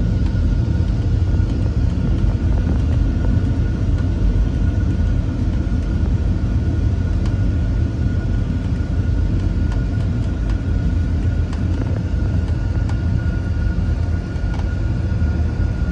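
Boeing 747-8 full-flight simulator playing its takeoff-roll sound: a loud, steady low rumble of engines at takeoff thrust and wheels on the runway, with a thin steady whine above it, as the jet accelerates toward V1.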